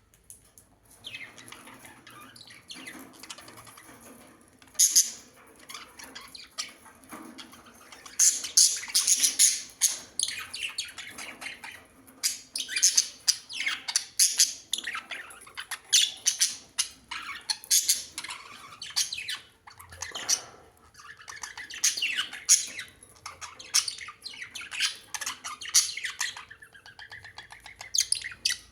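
Birds chirping and squawking: a long run of short, sharp, high calls, faint for the first few seconds and then coming thick and fast.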